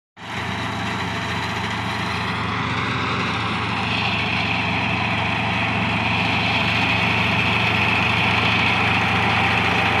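Kubota R1-551 rice combine harvester working a rice crop: its engine runs steadily under the dense noise of its cutting and threshing machinery. The sound grows slowly louder as the machine approaches.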